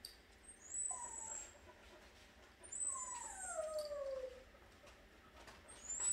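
Dog whining: a short whine about a second in, then a longer one that slides down in pitch around the middle, and another starting near the end.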